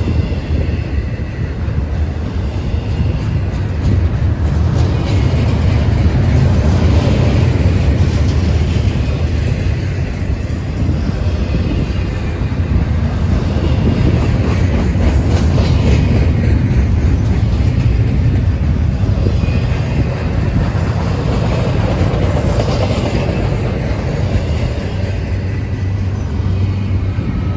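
Double-stack intermodal freight cars rolling past close by: a steady, loud rumble of steel wheels on the rails.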